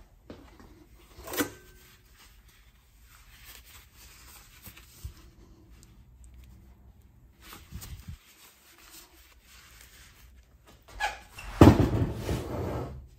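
Gloved hands handling heavy cast copper ingots on a steel-topped digital scale: a sharp metallic clink about a second in, then soft rubbing and squeaks of glove against metal. Near the end comes a louder scraping and thudding as an ingot is taken off the scale and set down on the wooden bench.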